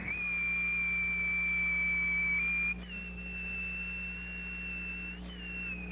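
Ancient stone whistle, a small stone whose holes were bored by shellfish, blown across a hole to give a shrill, clear whistle. It sounds three long held notes: it breaks about three seconds in, where the second note comes a little higher, and again near the end.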